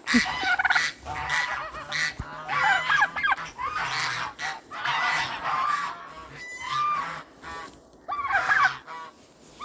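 Geese honking: a string of loud, overlapping honks with harsher hoarse calls mixed in.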